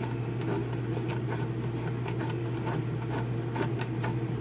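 Fingers turning and working loose a small metal panel-mount knob, giving irregular scratchy rubbing clicks. A steady low hum runs underneath.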